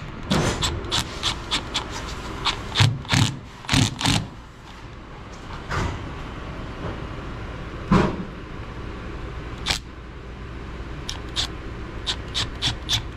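Hand work on metal HVAC parts: irregular sharp clicks, knocks and scrapes as screws and drain-line fittings are handled and tightened, over a steady low hum.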